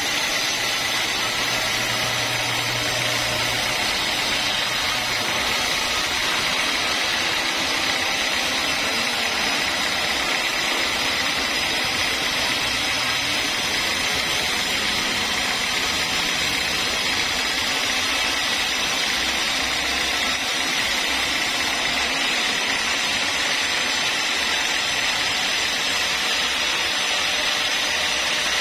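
Sawmill log saw running steadily: a constant dense hiss with a thin high whine held on one pitch.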